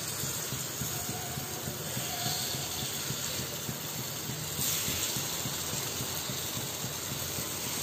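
Batter sizzling with a steady hiss as it is poured into the hot, oiled wells of a cast-iron kuzhi paniyaram pan; the hiss grows louder about two-thirds of the way through as more wells are filled.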